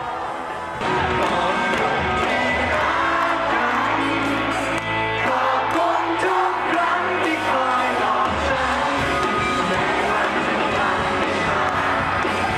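Live pop-rock band with a male lead vocalist singing, heard from within the audience, with some shouts from the crowd. The band gets louder about a second in.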